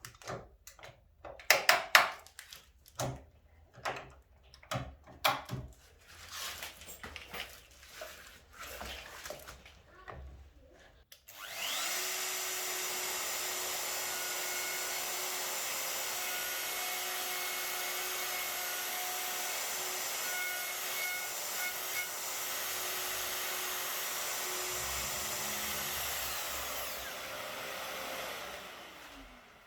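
Knocks and clicks of a hinge template and clamps being fitted to a door edge, then a Festool plunge router starts about eleven seconds in and runs steadily with its dust extraction, cutting a butt-hinge mortise, before the motor winds down with a falling pitch near the end.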